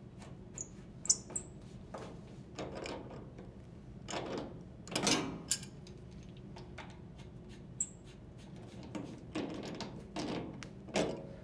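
Water supply hose couplings being hand-threaded onto a washing machine's hot and cold inlet valves: scattered clicks, scrapes and squeaks of metal fittings turning on the threads. Near the end, channel-lock pliers grip and tighten a coupling.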